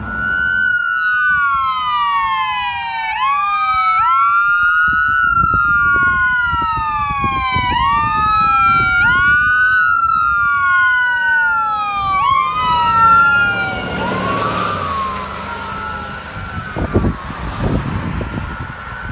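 Two emergency-vehicle sirens, from a fire engine and an ambulance running with lights and sirens, wailing over each other. Each sweep rises quickly and falls slowly. They fade after about fourteen seconds, leaving road noise from the vehicles.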